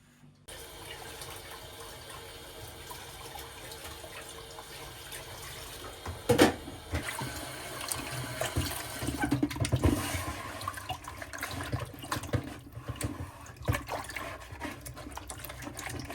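Water running from a tap into a sink, turned on about half a second in, with hands washing and splashing under the stream and a few knocks, the loudest about six seconds in.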